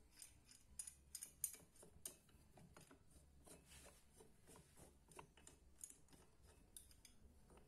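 Faint, irregular small metallic clicks and ticks of a crank-handled socket wrench turning a bolt on a Yamaha Xeon cylinder head.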